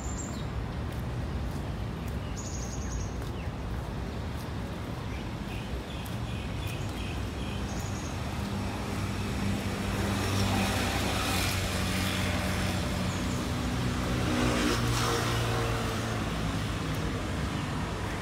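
Road traffic beside the walkway: a vehicle's engine and tyres grow louder from about halfway through, pass by, and fade near the end, over a steady low traffic rumble.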